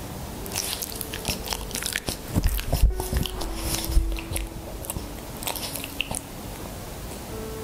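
A small dog licking its lips and smacking its mouth close to the microphone, a run of wet clicks and smacks. A few soft low thuds come about two to four seconds in as it shifts its body down onto the rug.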